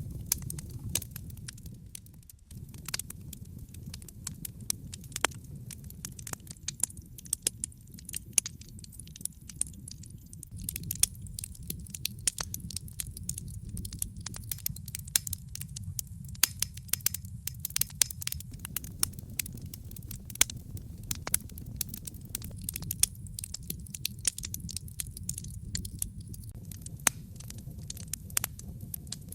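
Fire crackling in a fireplace: frequent, irregular sharp pops and snaps over a steady low rumble of the flames.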